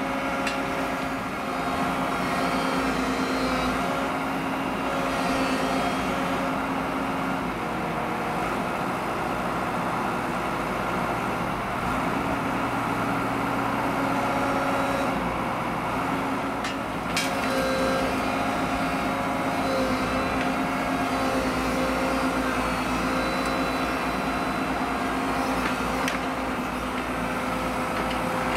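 Diesel engine of a tracked railway excavator running steadily, with a steady tone that drops out and returns a few times. A single sharp knock about seventeen seconds in.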